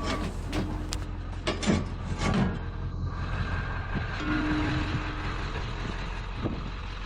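Steady low hum of an idling vehicle engine, with a few sharp knocks and two brief steady squeal-like tones.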